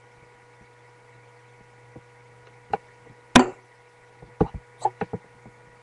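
A steady electrical hum with a few scattered knocks and clicks, the loudest a sharp knock about three seconds in.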